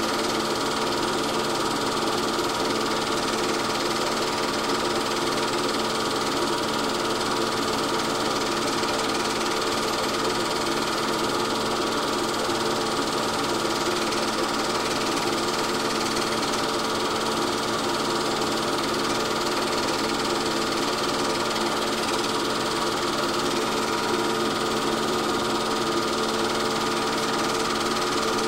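Steady mechanical running noise: an even whir with a constant hum, unchanging throughout.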